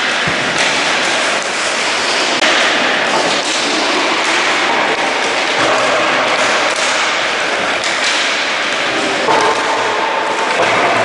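Roller hockey sticks striking balls and balls knocking against the rink boards and goal, many scattered knocks over a steady din in the rink.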